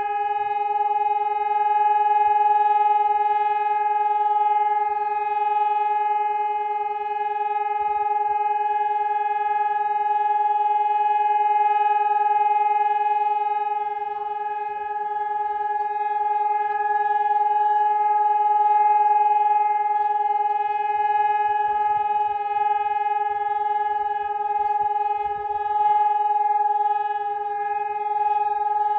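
Telegrafia Pavian electronic siren sounding a steady, unbroken tone at one pitch, with no rise or fall: the test signal of the Slovak national warning system.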